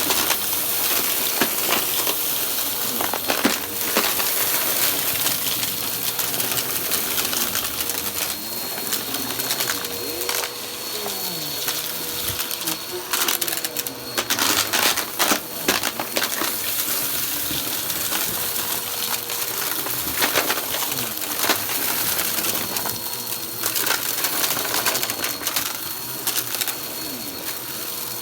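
Vacuum cleaner running steadily while it sucks up crunchy debris, with many small pieces crackling and clattering through it.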